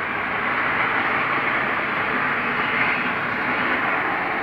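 A steady, unexplained noise with no clear pitch, likened to a jet engine or a very high-pressure washer.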